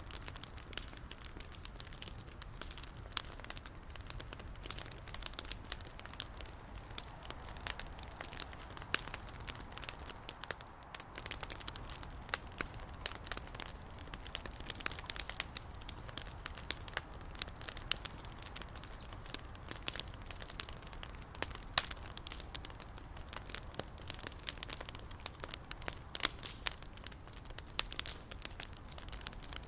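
Wood bonfire crackling, with many sharp irregular pops and snaps over a low steady rumble.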